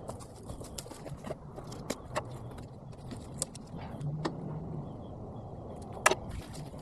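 Sped-up clinks and knocks of hand tools at work, with one sharp strike about six seconds in, over a low steady hum.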